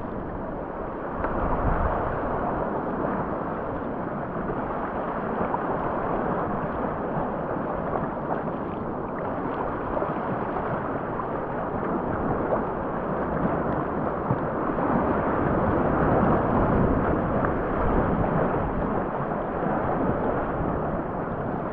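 Sea water sloshing and lapping around a moving sea kayak, with wind buffeting the microphone; a steady wash without distinct strokes.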